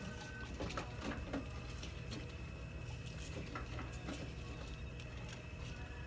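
Indoor room tone: a steady low hum with faint steady tones above it, broken by scattered small clicks and taps.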